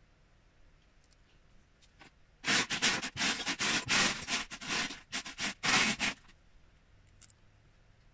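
Hands rummaging through loose Lego bricks, a dense clatter and scrape of plastic pieces lasting about four seconds from a couple of seconds in. A few faint clicks of bricks come before and after.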